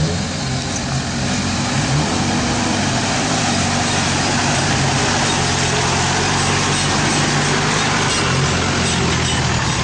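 Mitsubishi Pajero 4x4 engine running steadily as the vehicle crawls past through a muddy track, with the noise of the approaching convoy behind it.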